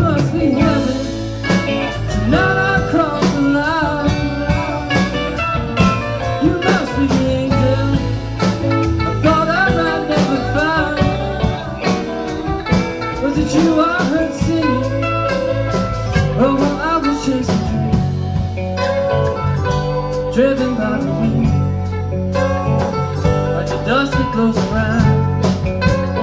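Live rock band playing: electric guitars, bass, drums and electric keyboard.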